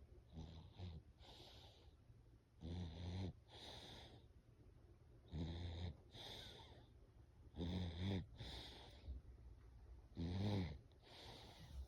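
Loud snoring: a rasping, pitched snore on each in-breath, about every two and a half seconds, five in all, each followed by a softer, breathy out-breath.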